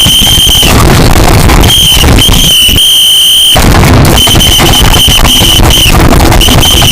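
Deliberately loud, heavily distorted crackling noise, clipped at full volume, with a piercing high-pitched tone that cuts in and out about eight times in uneven stretches.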